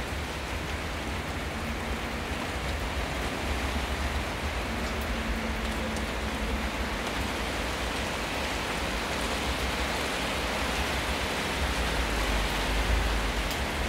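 Steady heavy rain falling, a constant hiss with a low rumble underneath that grows a little louder near the end.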